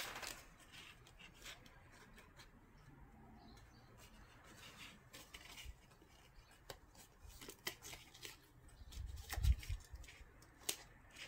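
Faint rustling and light clicks of cardstock being handled as the box's side panels are pressed together along their taped tabs, with a soft thump near the end.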